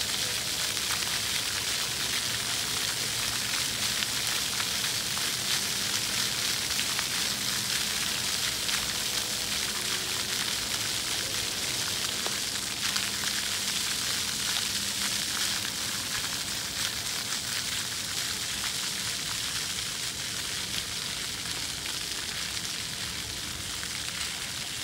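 Steady hiss of splash-pad fountain water spraying and pattering onto wet concrete, easing slightly near the end.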